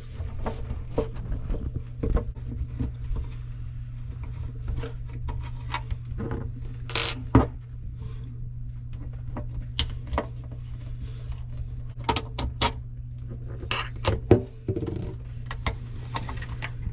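Scattered light clicks and small metallic clinks of a screwdriver, screws and an outlet's cover plate being handled as a wall outlet is unscrewed and pulled from its box, over a steady low hum.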